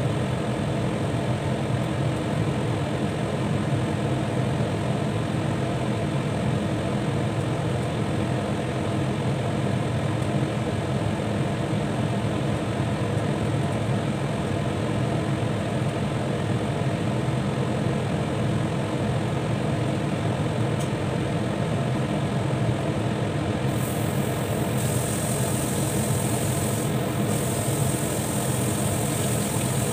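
A covered pot of curry boiling on the cooker: a steady bubbling rumble, with a high hiss that comes and goes over the last few seconds.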